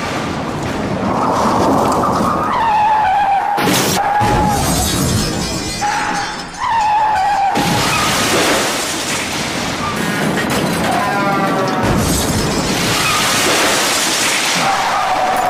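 Car crash sound effects: tyres squealing in wavering pitched screeches, broken by several sharp crash impacts with shattering glass, repeated a few times over.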